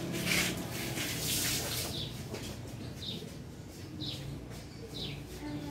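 A small bird chirping over and over, short falling notes about once a second. A hissing rush like running water sounds during the first two seconds.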